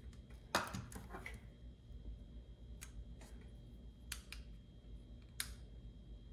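A few light, separate clicks and taps of the opened plastic parts of an Oral-B electric toothbrush being handled and set down on a desk, the loudest about half a second in.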